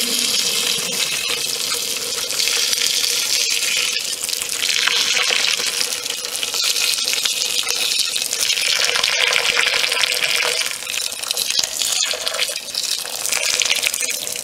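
Boiling water poured from a kettle in a steady, splashing stream onto an old aluminium Amal carburettor sitting in a plastic tub. The water is heating the carburettor body so that its seized parts will expand and come loose. The pour swells and eases a few times.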